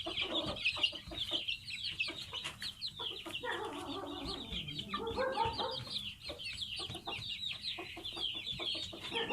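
Aseel chicks peeping continuously, with many rapid, high, falling cheeps. A lower, drawn-out call rises over them near the middle.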